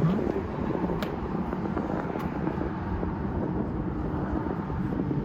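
Steady low roar of ocean surf breaking below, with no distinct single events.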